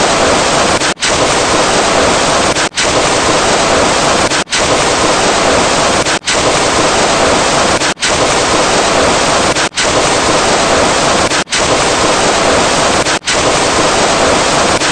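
A loud, harsh, hiss-like sound effect played over and over, each run about 1.75 seconds long with a brief cut between runs, nine runs in all, stopping abruptly at the end.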